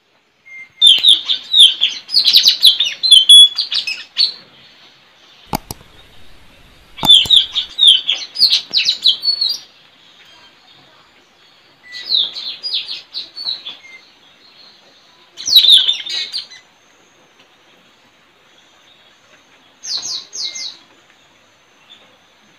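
Blue-rumped parrots (tanau) calling in rapid runs of shrill, high chirps, in five bursts a few seconds apart, the last one short. A single sharp knock about five and a half seconds in.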